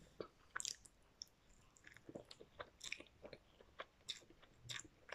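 A person quietly chewing instant cup noodles, with faint, irregular wet mouth clicks and smacks.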